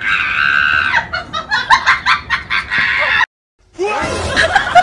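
Chihuahua growling and snarling in a high, strained tone, then in short sharp bursts, while guarding its food tray from a poking finger. The sound cuts off abruptly about three seconds in. After a short gap, a different clip begins with vocal sounds that slide up and down in pitch.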